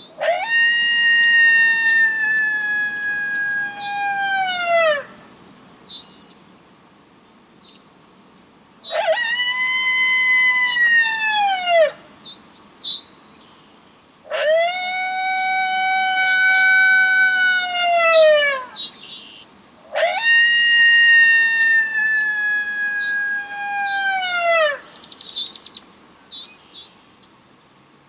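Recorded coyote howls (the 'MFK Hello Howls' call sound) played from a predator call: four long howls, each rising quickly, holding, then falling off at the end. Insects trill steadily in the pauses.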